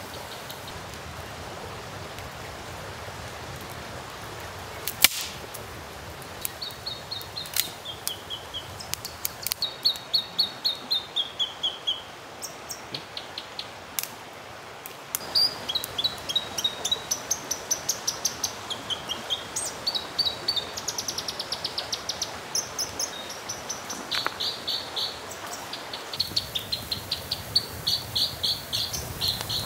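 Small birds chirping and trilling in quick repeated runs of high notes, over the steady hiss of a burning campfire and a bubbling stream. A single sharp crack about five seconds in.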